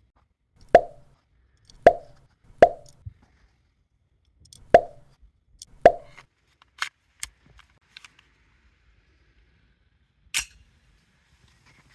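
Springfield Armory 1911 CO2 BB pistol firing: five sharp pops at uneven intervals over the first six seconds, each with a short ring. A couple of lighter clicks follow, and one sharp click comes near the end.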